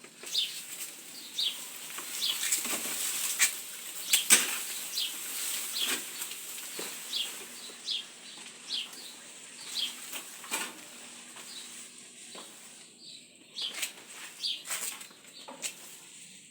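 Birds chirping, a short falling chirp repeated about every half second, with scattered sharp clicks or knocks among them.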